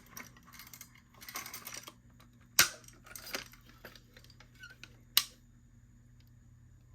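A key being worked in the key switch of a FireLite BG-12L fire alarm pull station: light rattling and scraping of keys and plastic, with two sharp clicks about two and a half seconds apart.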